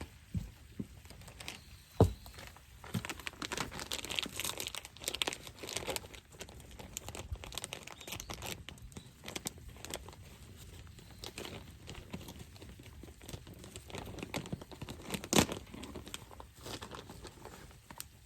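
Crinkly wrapping being handled, crumpled and torn, with many small clicks and two sharp knocks, about 2 s and 15 s in, the second the loudest.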